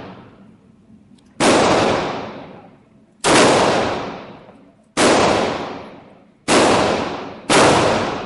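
Five gunshots fired one at a time, about one and a half to two seconds apart. Each shot is a sharp crack with a long echoing tail that fades before the next.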